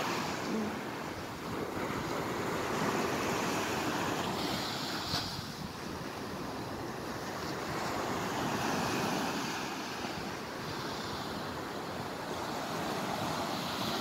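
Waves washing up on the shore: a steady rushing noise that slowly swells and eases over several seconds.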